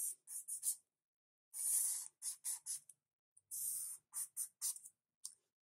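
Black Sharpie marker drawing on a paper legal pad: two longer strokes for the lines and several short, quick strokes for the arrowheads.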